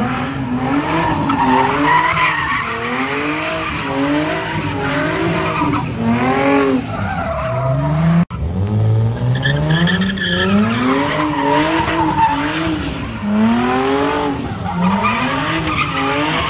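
Car doing donuts: the engine revs rise and fall over and over while the spinning rear tyres squeal and scrub on the asphalt. The sound drops out for an instant just after halfway.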